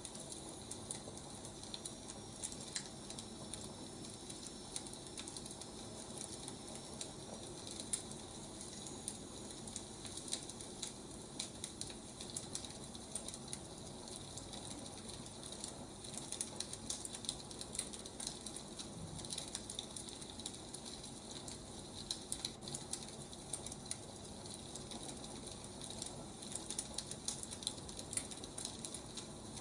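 Wood fire crackling, with a steady hiss and many small irregular pops and snaps.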